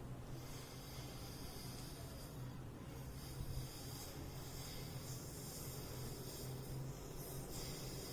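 A person breathing slowly and deeply in a yogic breathing exercise: long, hissing breaths lasting a few seconds each, with a short pause about two and a half seconds in. A low, steady hum runs beneath.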